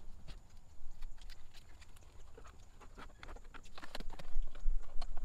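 Quick, irregular clicks and light knocks from hands working a sunshade's bungee-cord fittings and hardware into place. They grow busier and louder in the second half.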